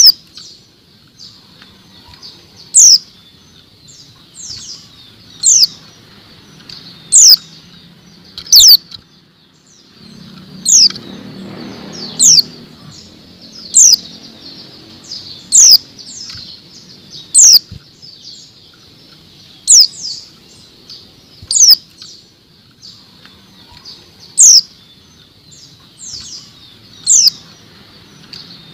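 A female white-eye (pleci) calling: short, sharp, high chirps, each falling quickly in pitch, one every second or two, the kind of female call used to provoke male white-eyes into song. A soft rustle of the bird moving and flapping in its cage near the middle.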